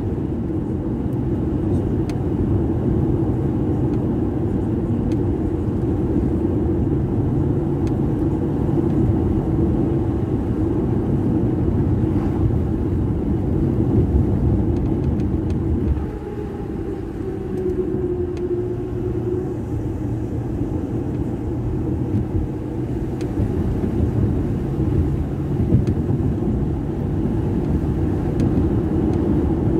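Car engine and tyre road noise heard from inside the cabin while driving, a steady low rumble that drops a little about halfway through and then holds.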